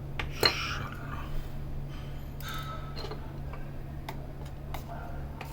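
Scattered sharp clicks and ticks, with a short scrape, of a small plastic vape casing being pried open with a tool; the loudest click comes about half a second in. A steady low hum runs underneath.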